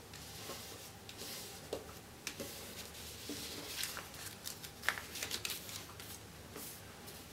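A folded sheet of paper being folded and creased by hand: soft rustling with quick crinkles and snaps as a corner is pressed down along the crease. It is busiest between about three and a half and five and a half seconds in.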